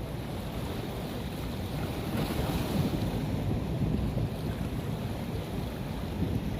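Rushing water with wind buffeting the microphone: a steady noise that swells a little in the middle.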